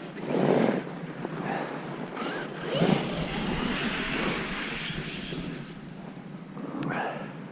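Battery-electric RC monster trucks driving through snow, with a steady thin high motor whine and louder noisy surges about half a second in, around three seconds and near the end.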